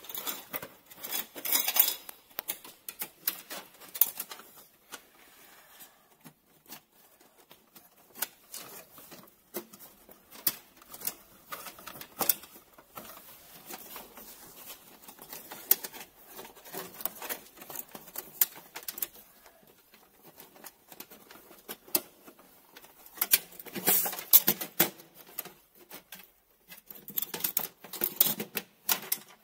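Irregular clicks, taps and light rattles of hands working wires and terminal screws inside a machine's electrical control box, coming in clusters that are busiest near the start and in the last few seconds.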